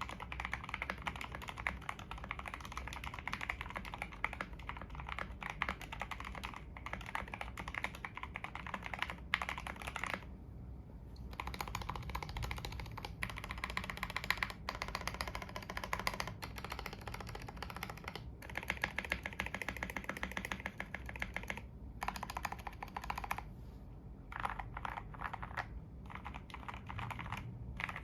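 Steady fast typing on a modded 60% mechanical keyboard fitted with Outemu Black linear switches, which are lubed with Krytox 205g0 and have their sound damped by a tape mod and foam. The keystrokes come in a dense run of clicks, with brief pauses about ten seconds in and again around the last third.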